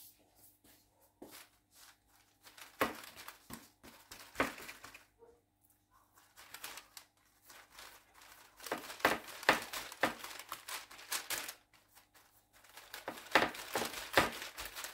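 Parchment baking paper crinkling and rustling under hands pressing and spreading a ball of dough flat, in irregular bursts that get busier in the second half.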